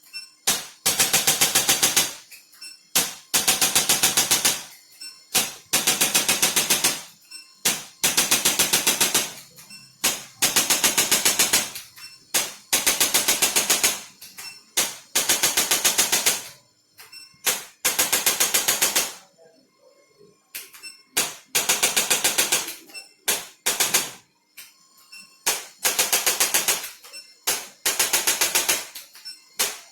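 Handheld chiropractic adjusting instrument firing in repeated bursts of rapid clicking, each burst about one to two seconds long with short pauses between.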